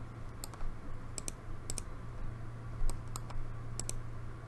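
Computer mouse clicks, about ten at an irregular pace, several in quick pairs, over a steady low hum.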